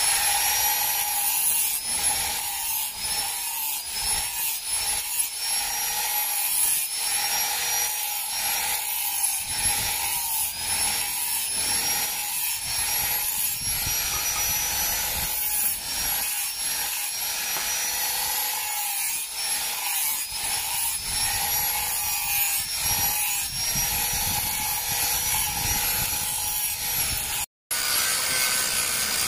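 Electric angle grinder with a sanding flap disc grinding a steel hoe blade. The motor whine sags each time the disc is pressed onto the metal and climbs back as it eases off, over and over, with a rasping scrub of abrasive on steel.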